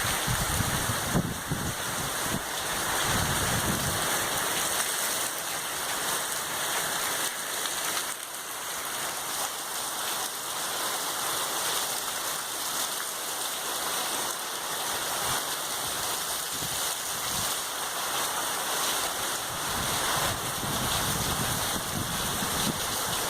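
Heavy rain falling steadily, a dense even hiss, with low rumbling in the first few seconds and again near the end.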